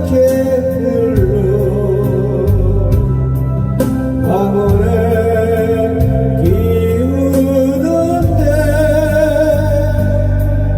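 Ballad music with no sung words: a melody line with vibrato over steady, sustained bass and chords.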